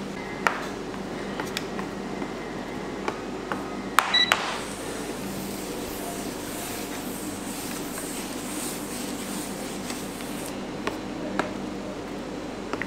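Metal bench scraper clicking and scraping against a marble slab as melted red-coloured chocolate is spread and tabled, over a steady room hum. A few louder clicks and a short electronic beep come about four seconds in, followed by several seconds of soft scraping.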